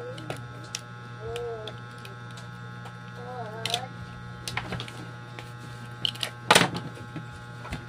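Clicks and knocks of an amplifier circuit board being handled and worked loose from its metal chassis, with a sharp knock about six and a half seconds in, over a steady low hum.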